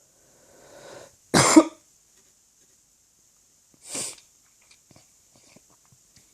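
A person hiccuping after drinking: a breath in, then a loud, sharp cough-like hiccup about a second and a half in, and a second, shorter one about four seconds in.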